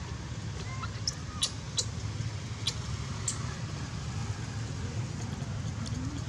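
Steady low rumble of a motor vehicle engine, with about five sharp clicks between roughly one and three and a half seconds in.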